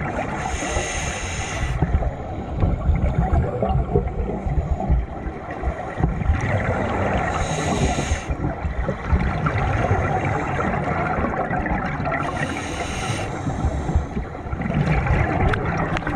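A scuba diver breathing through a regulator underwater. There is a hiss about every six seconds, three times, with low rumbling and bubbling noise in between.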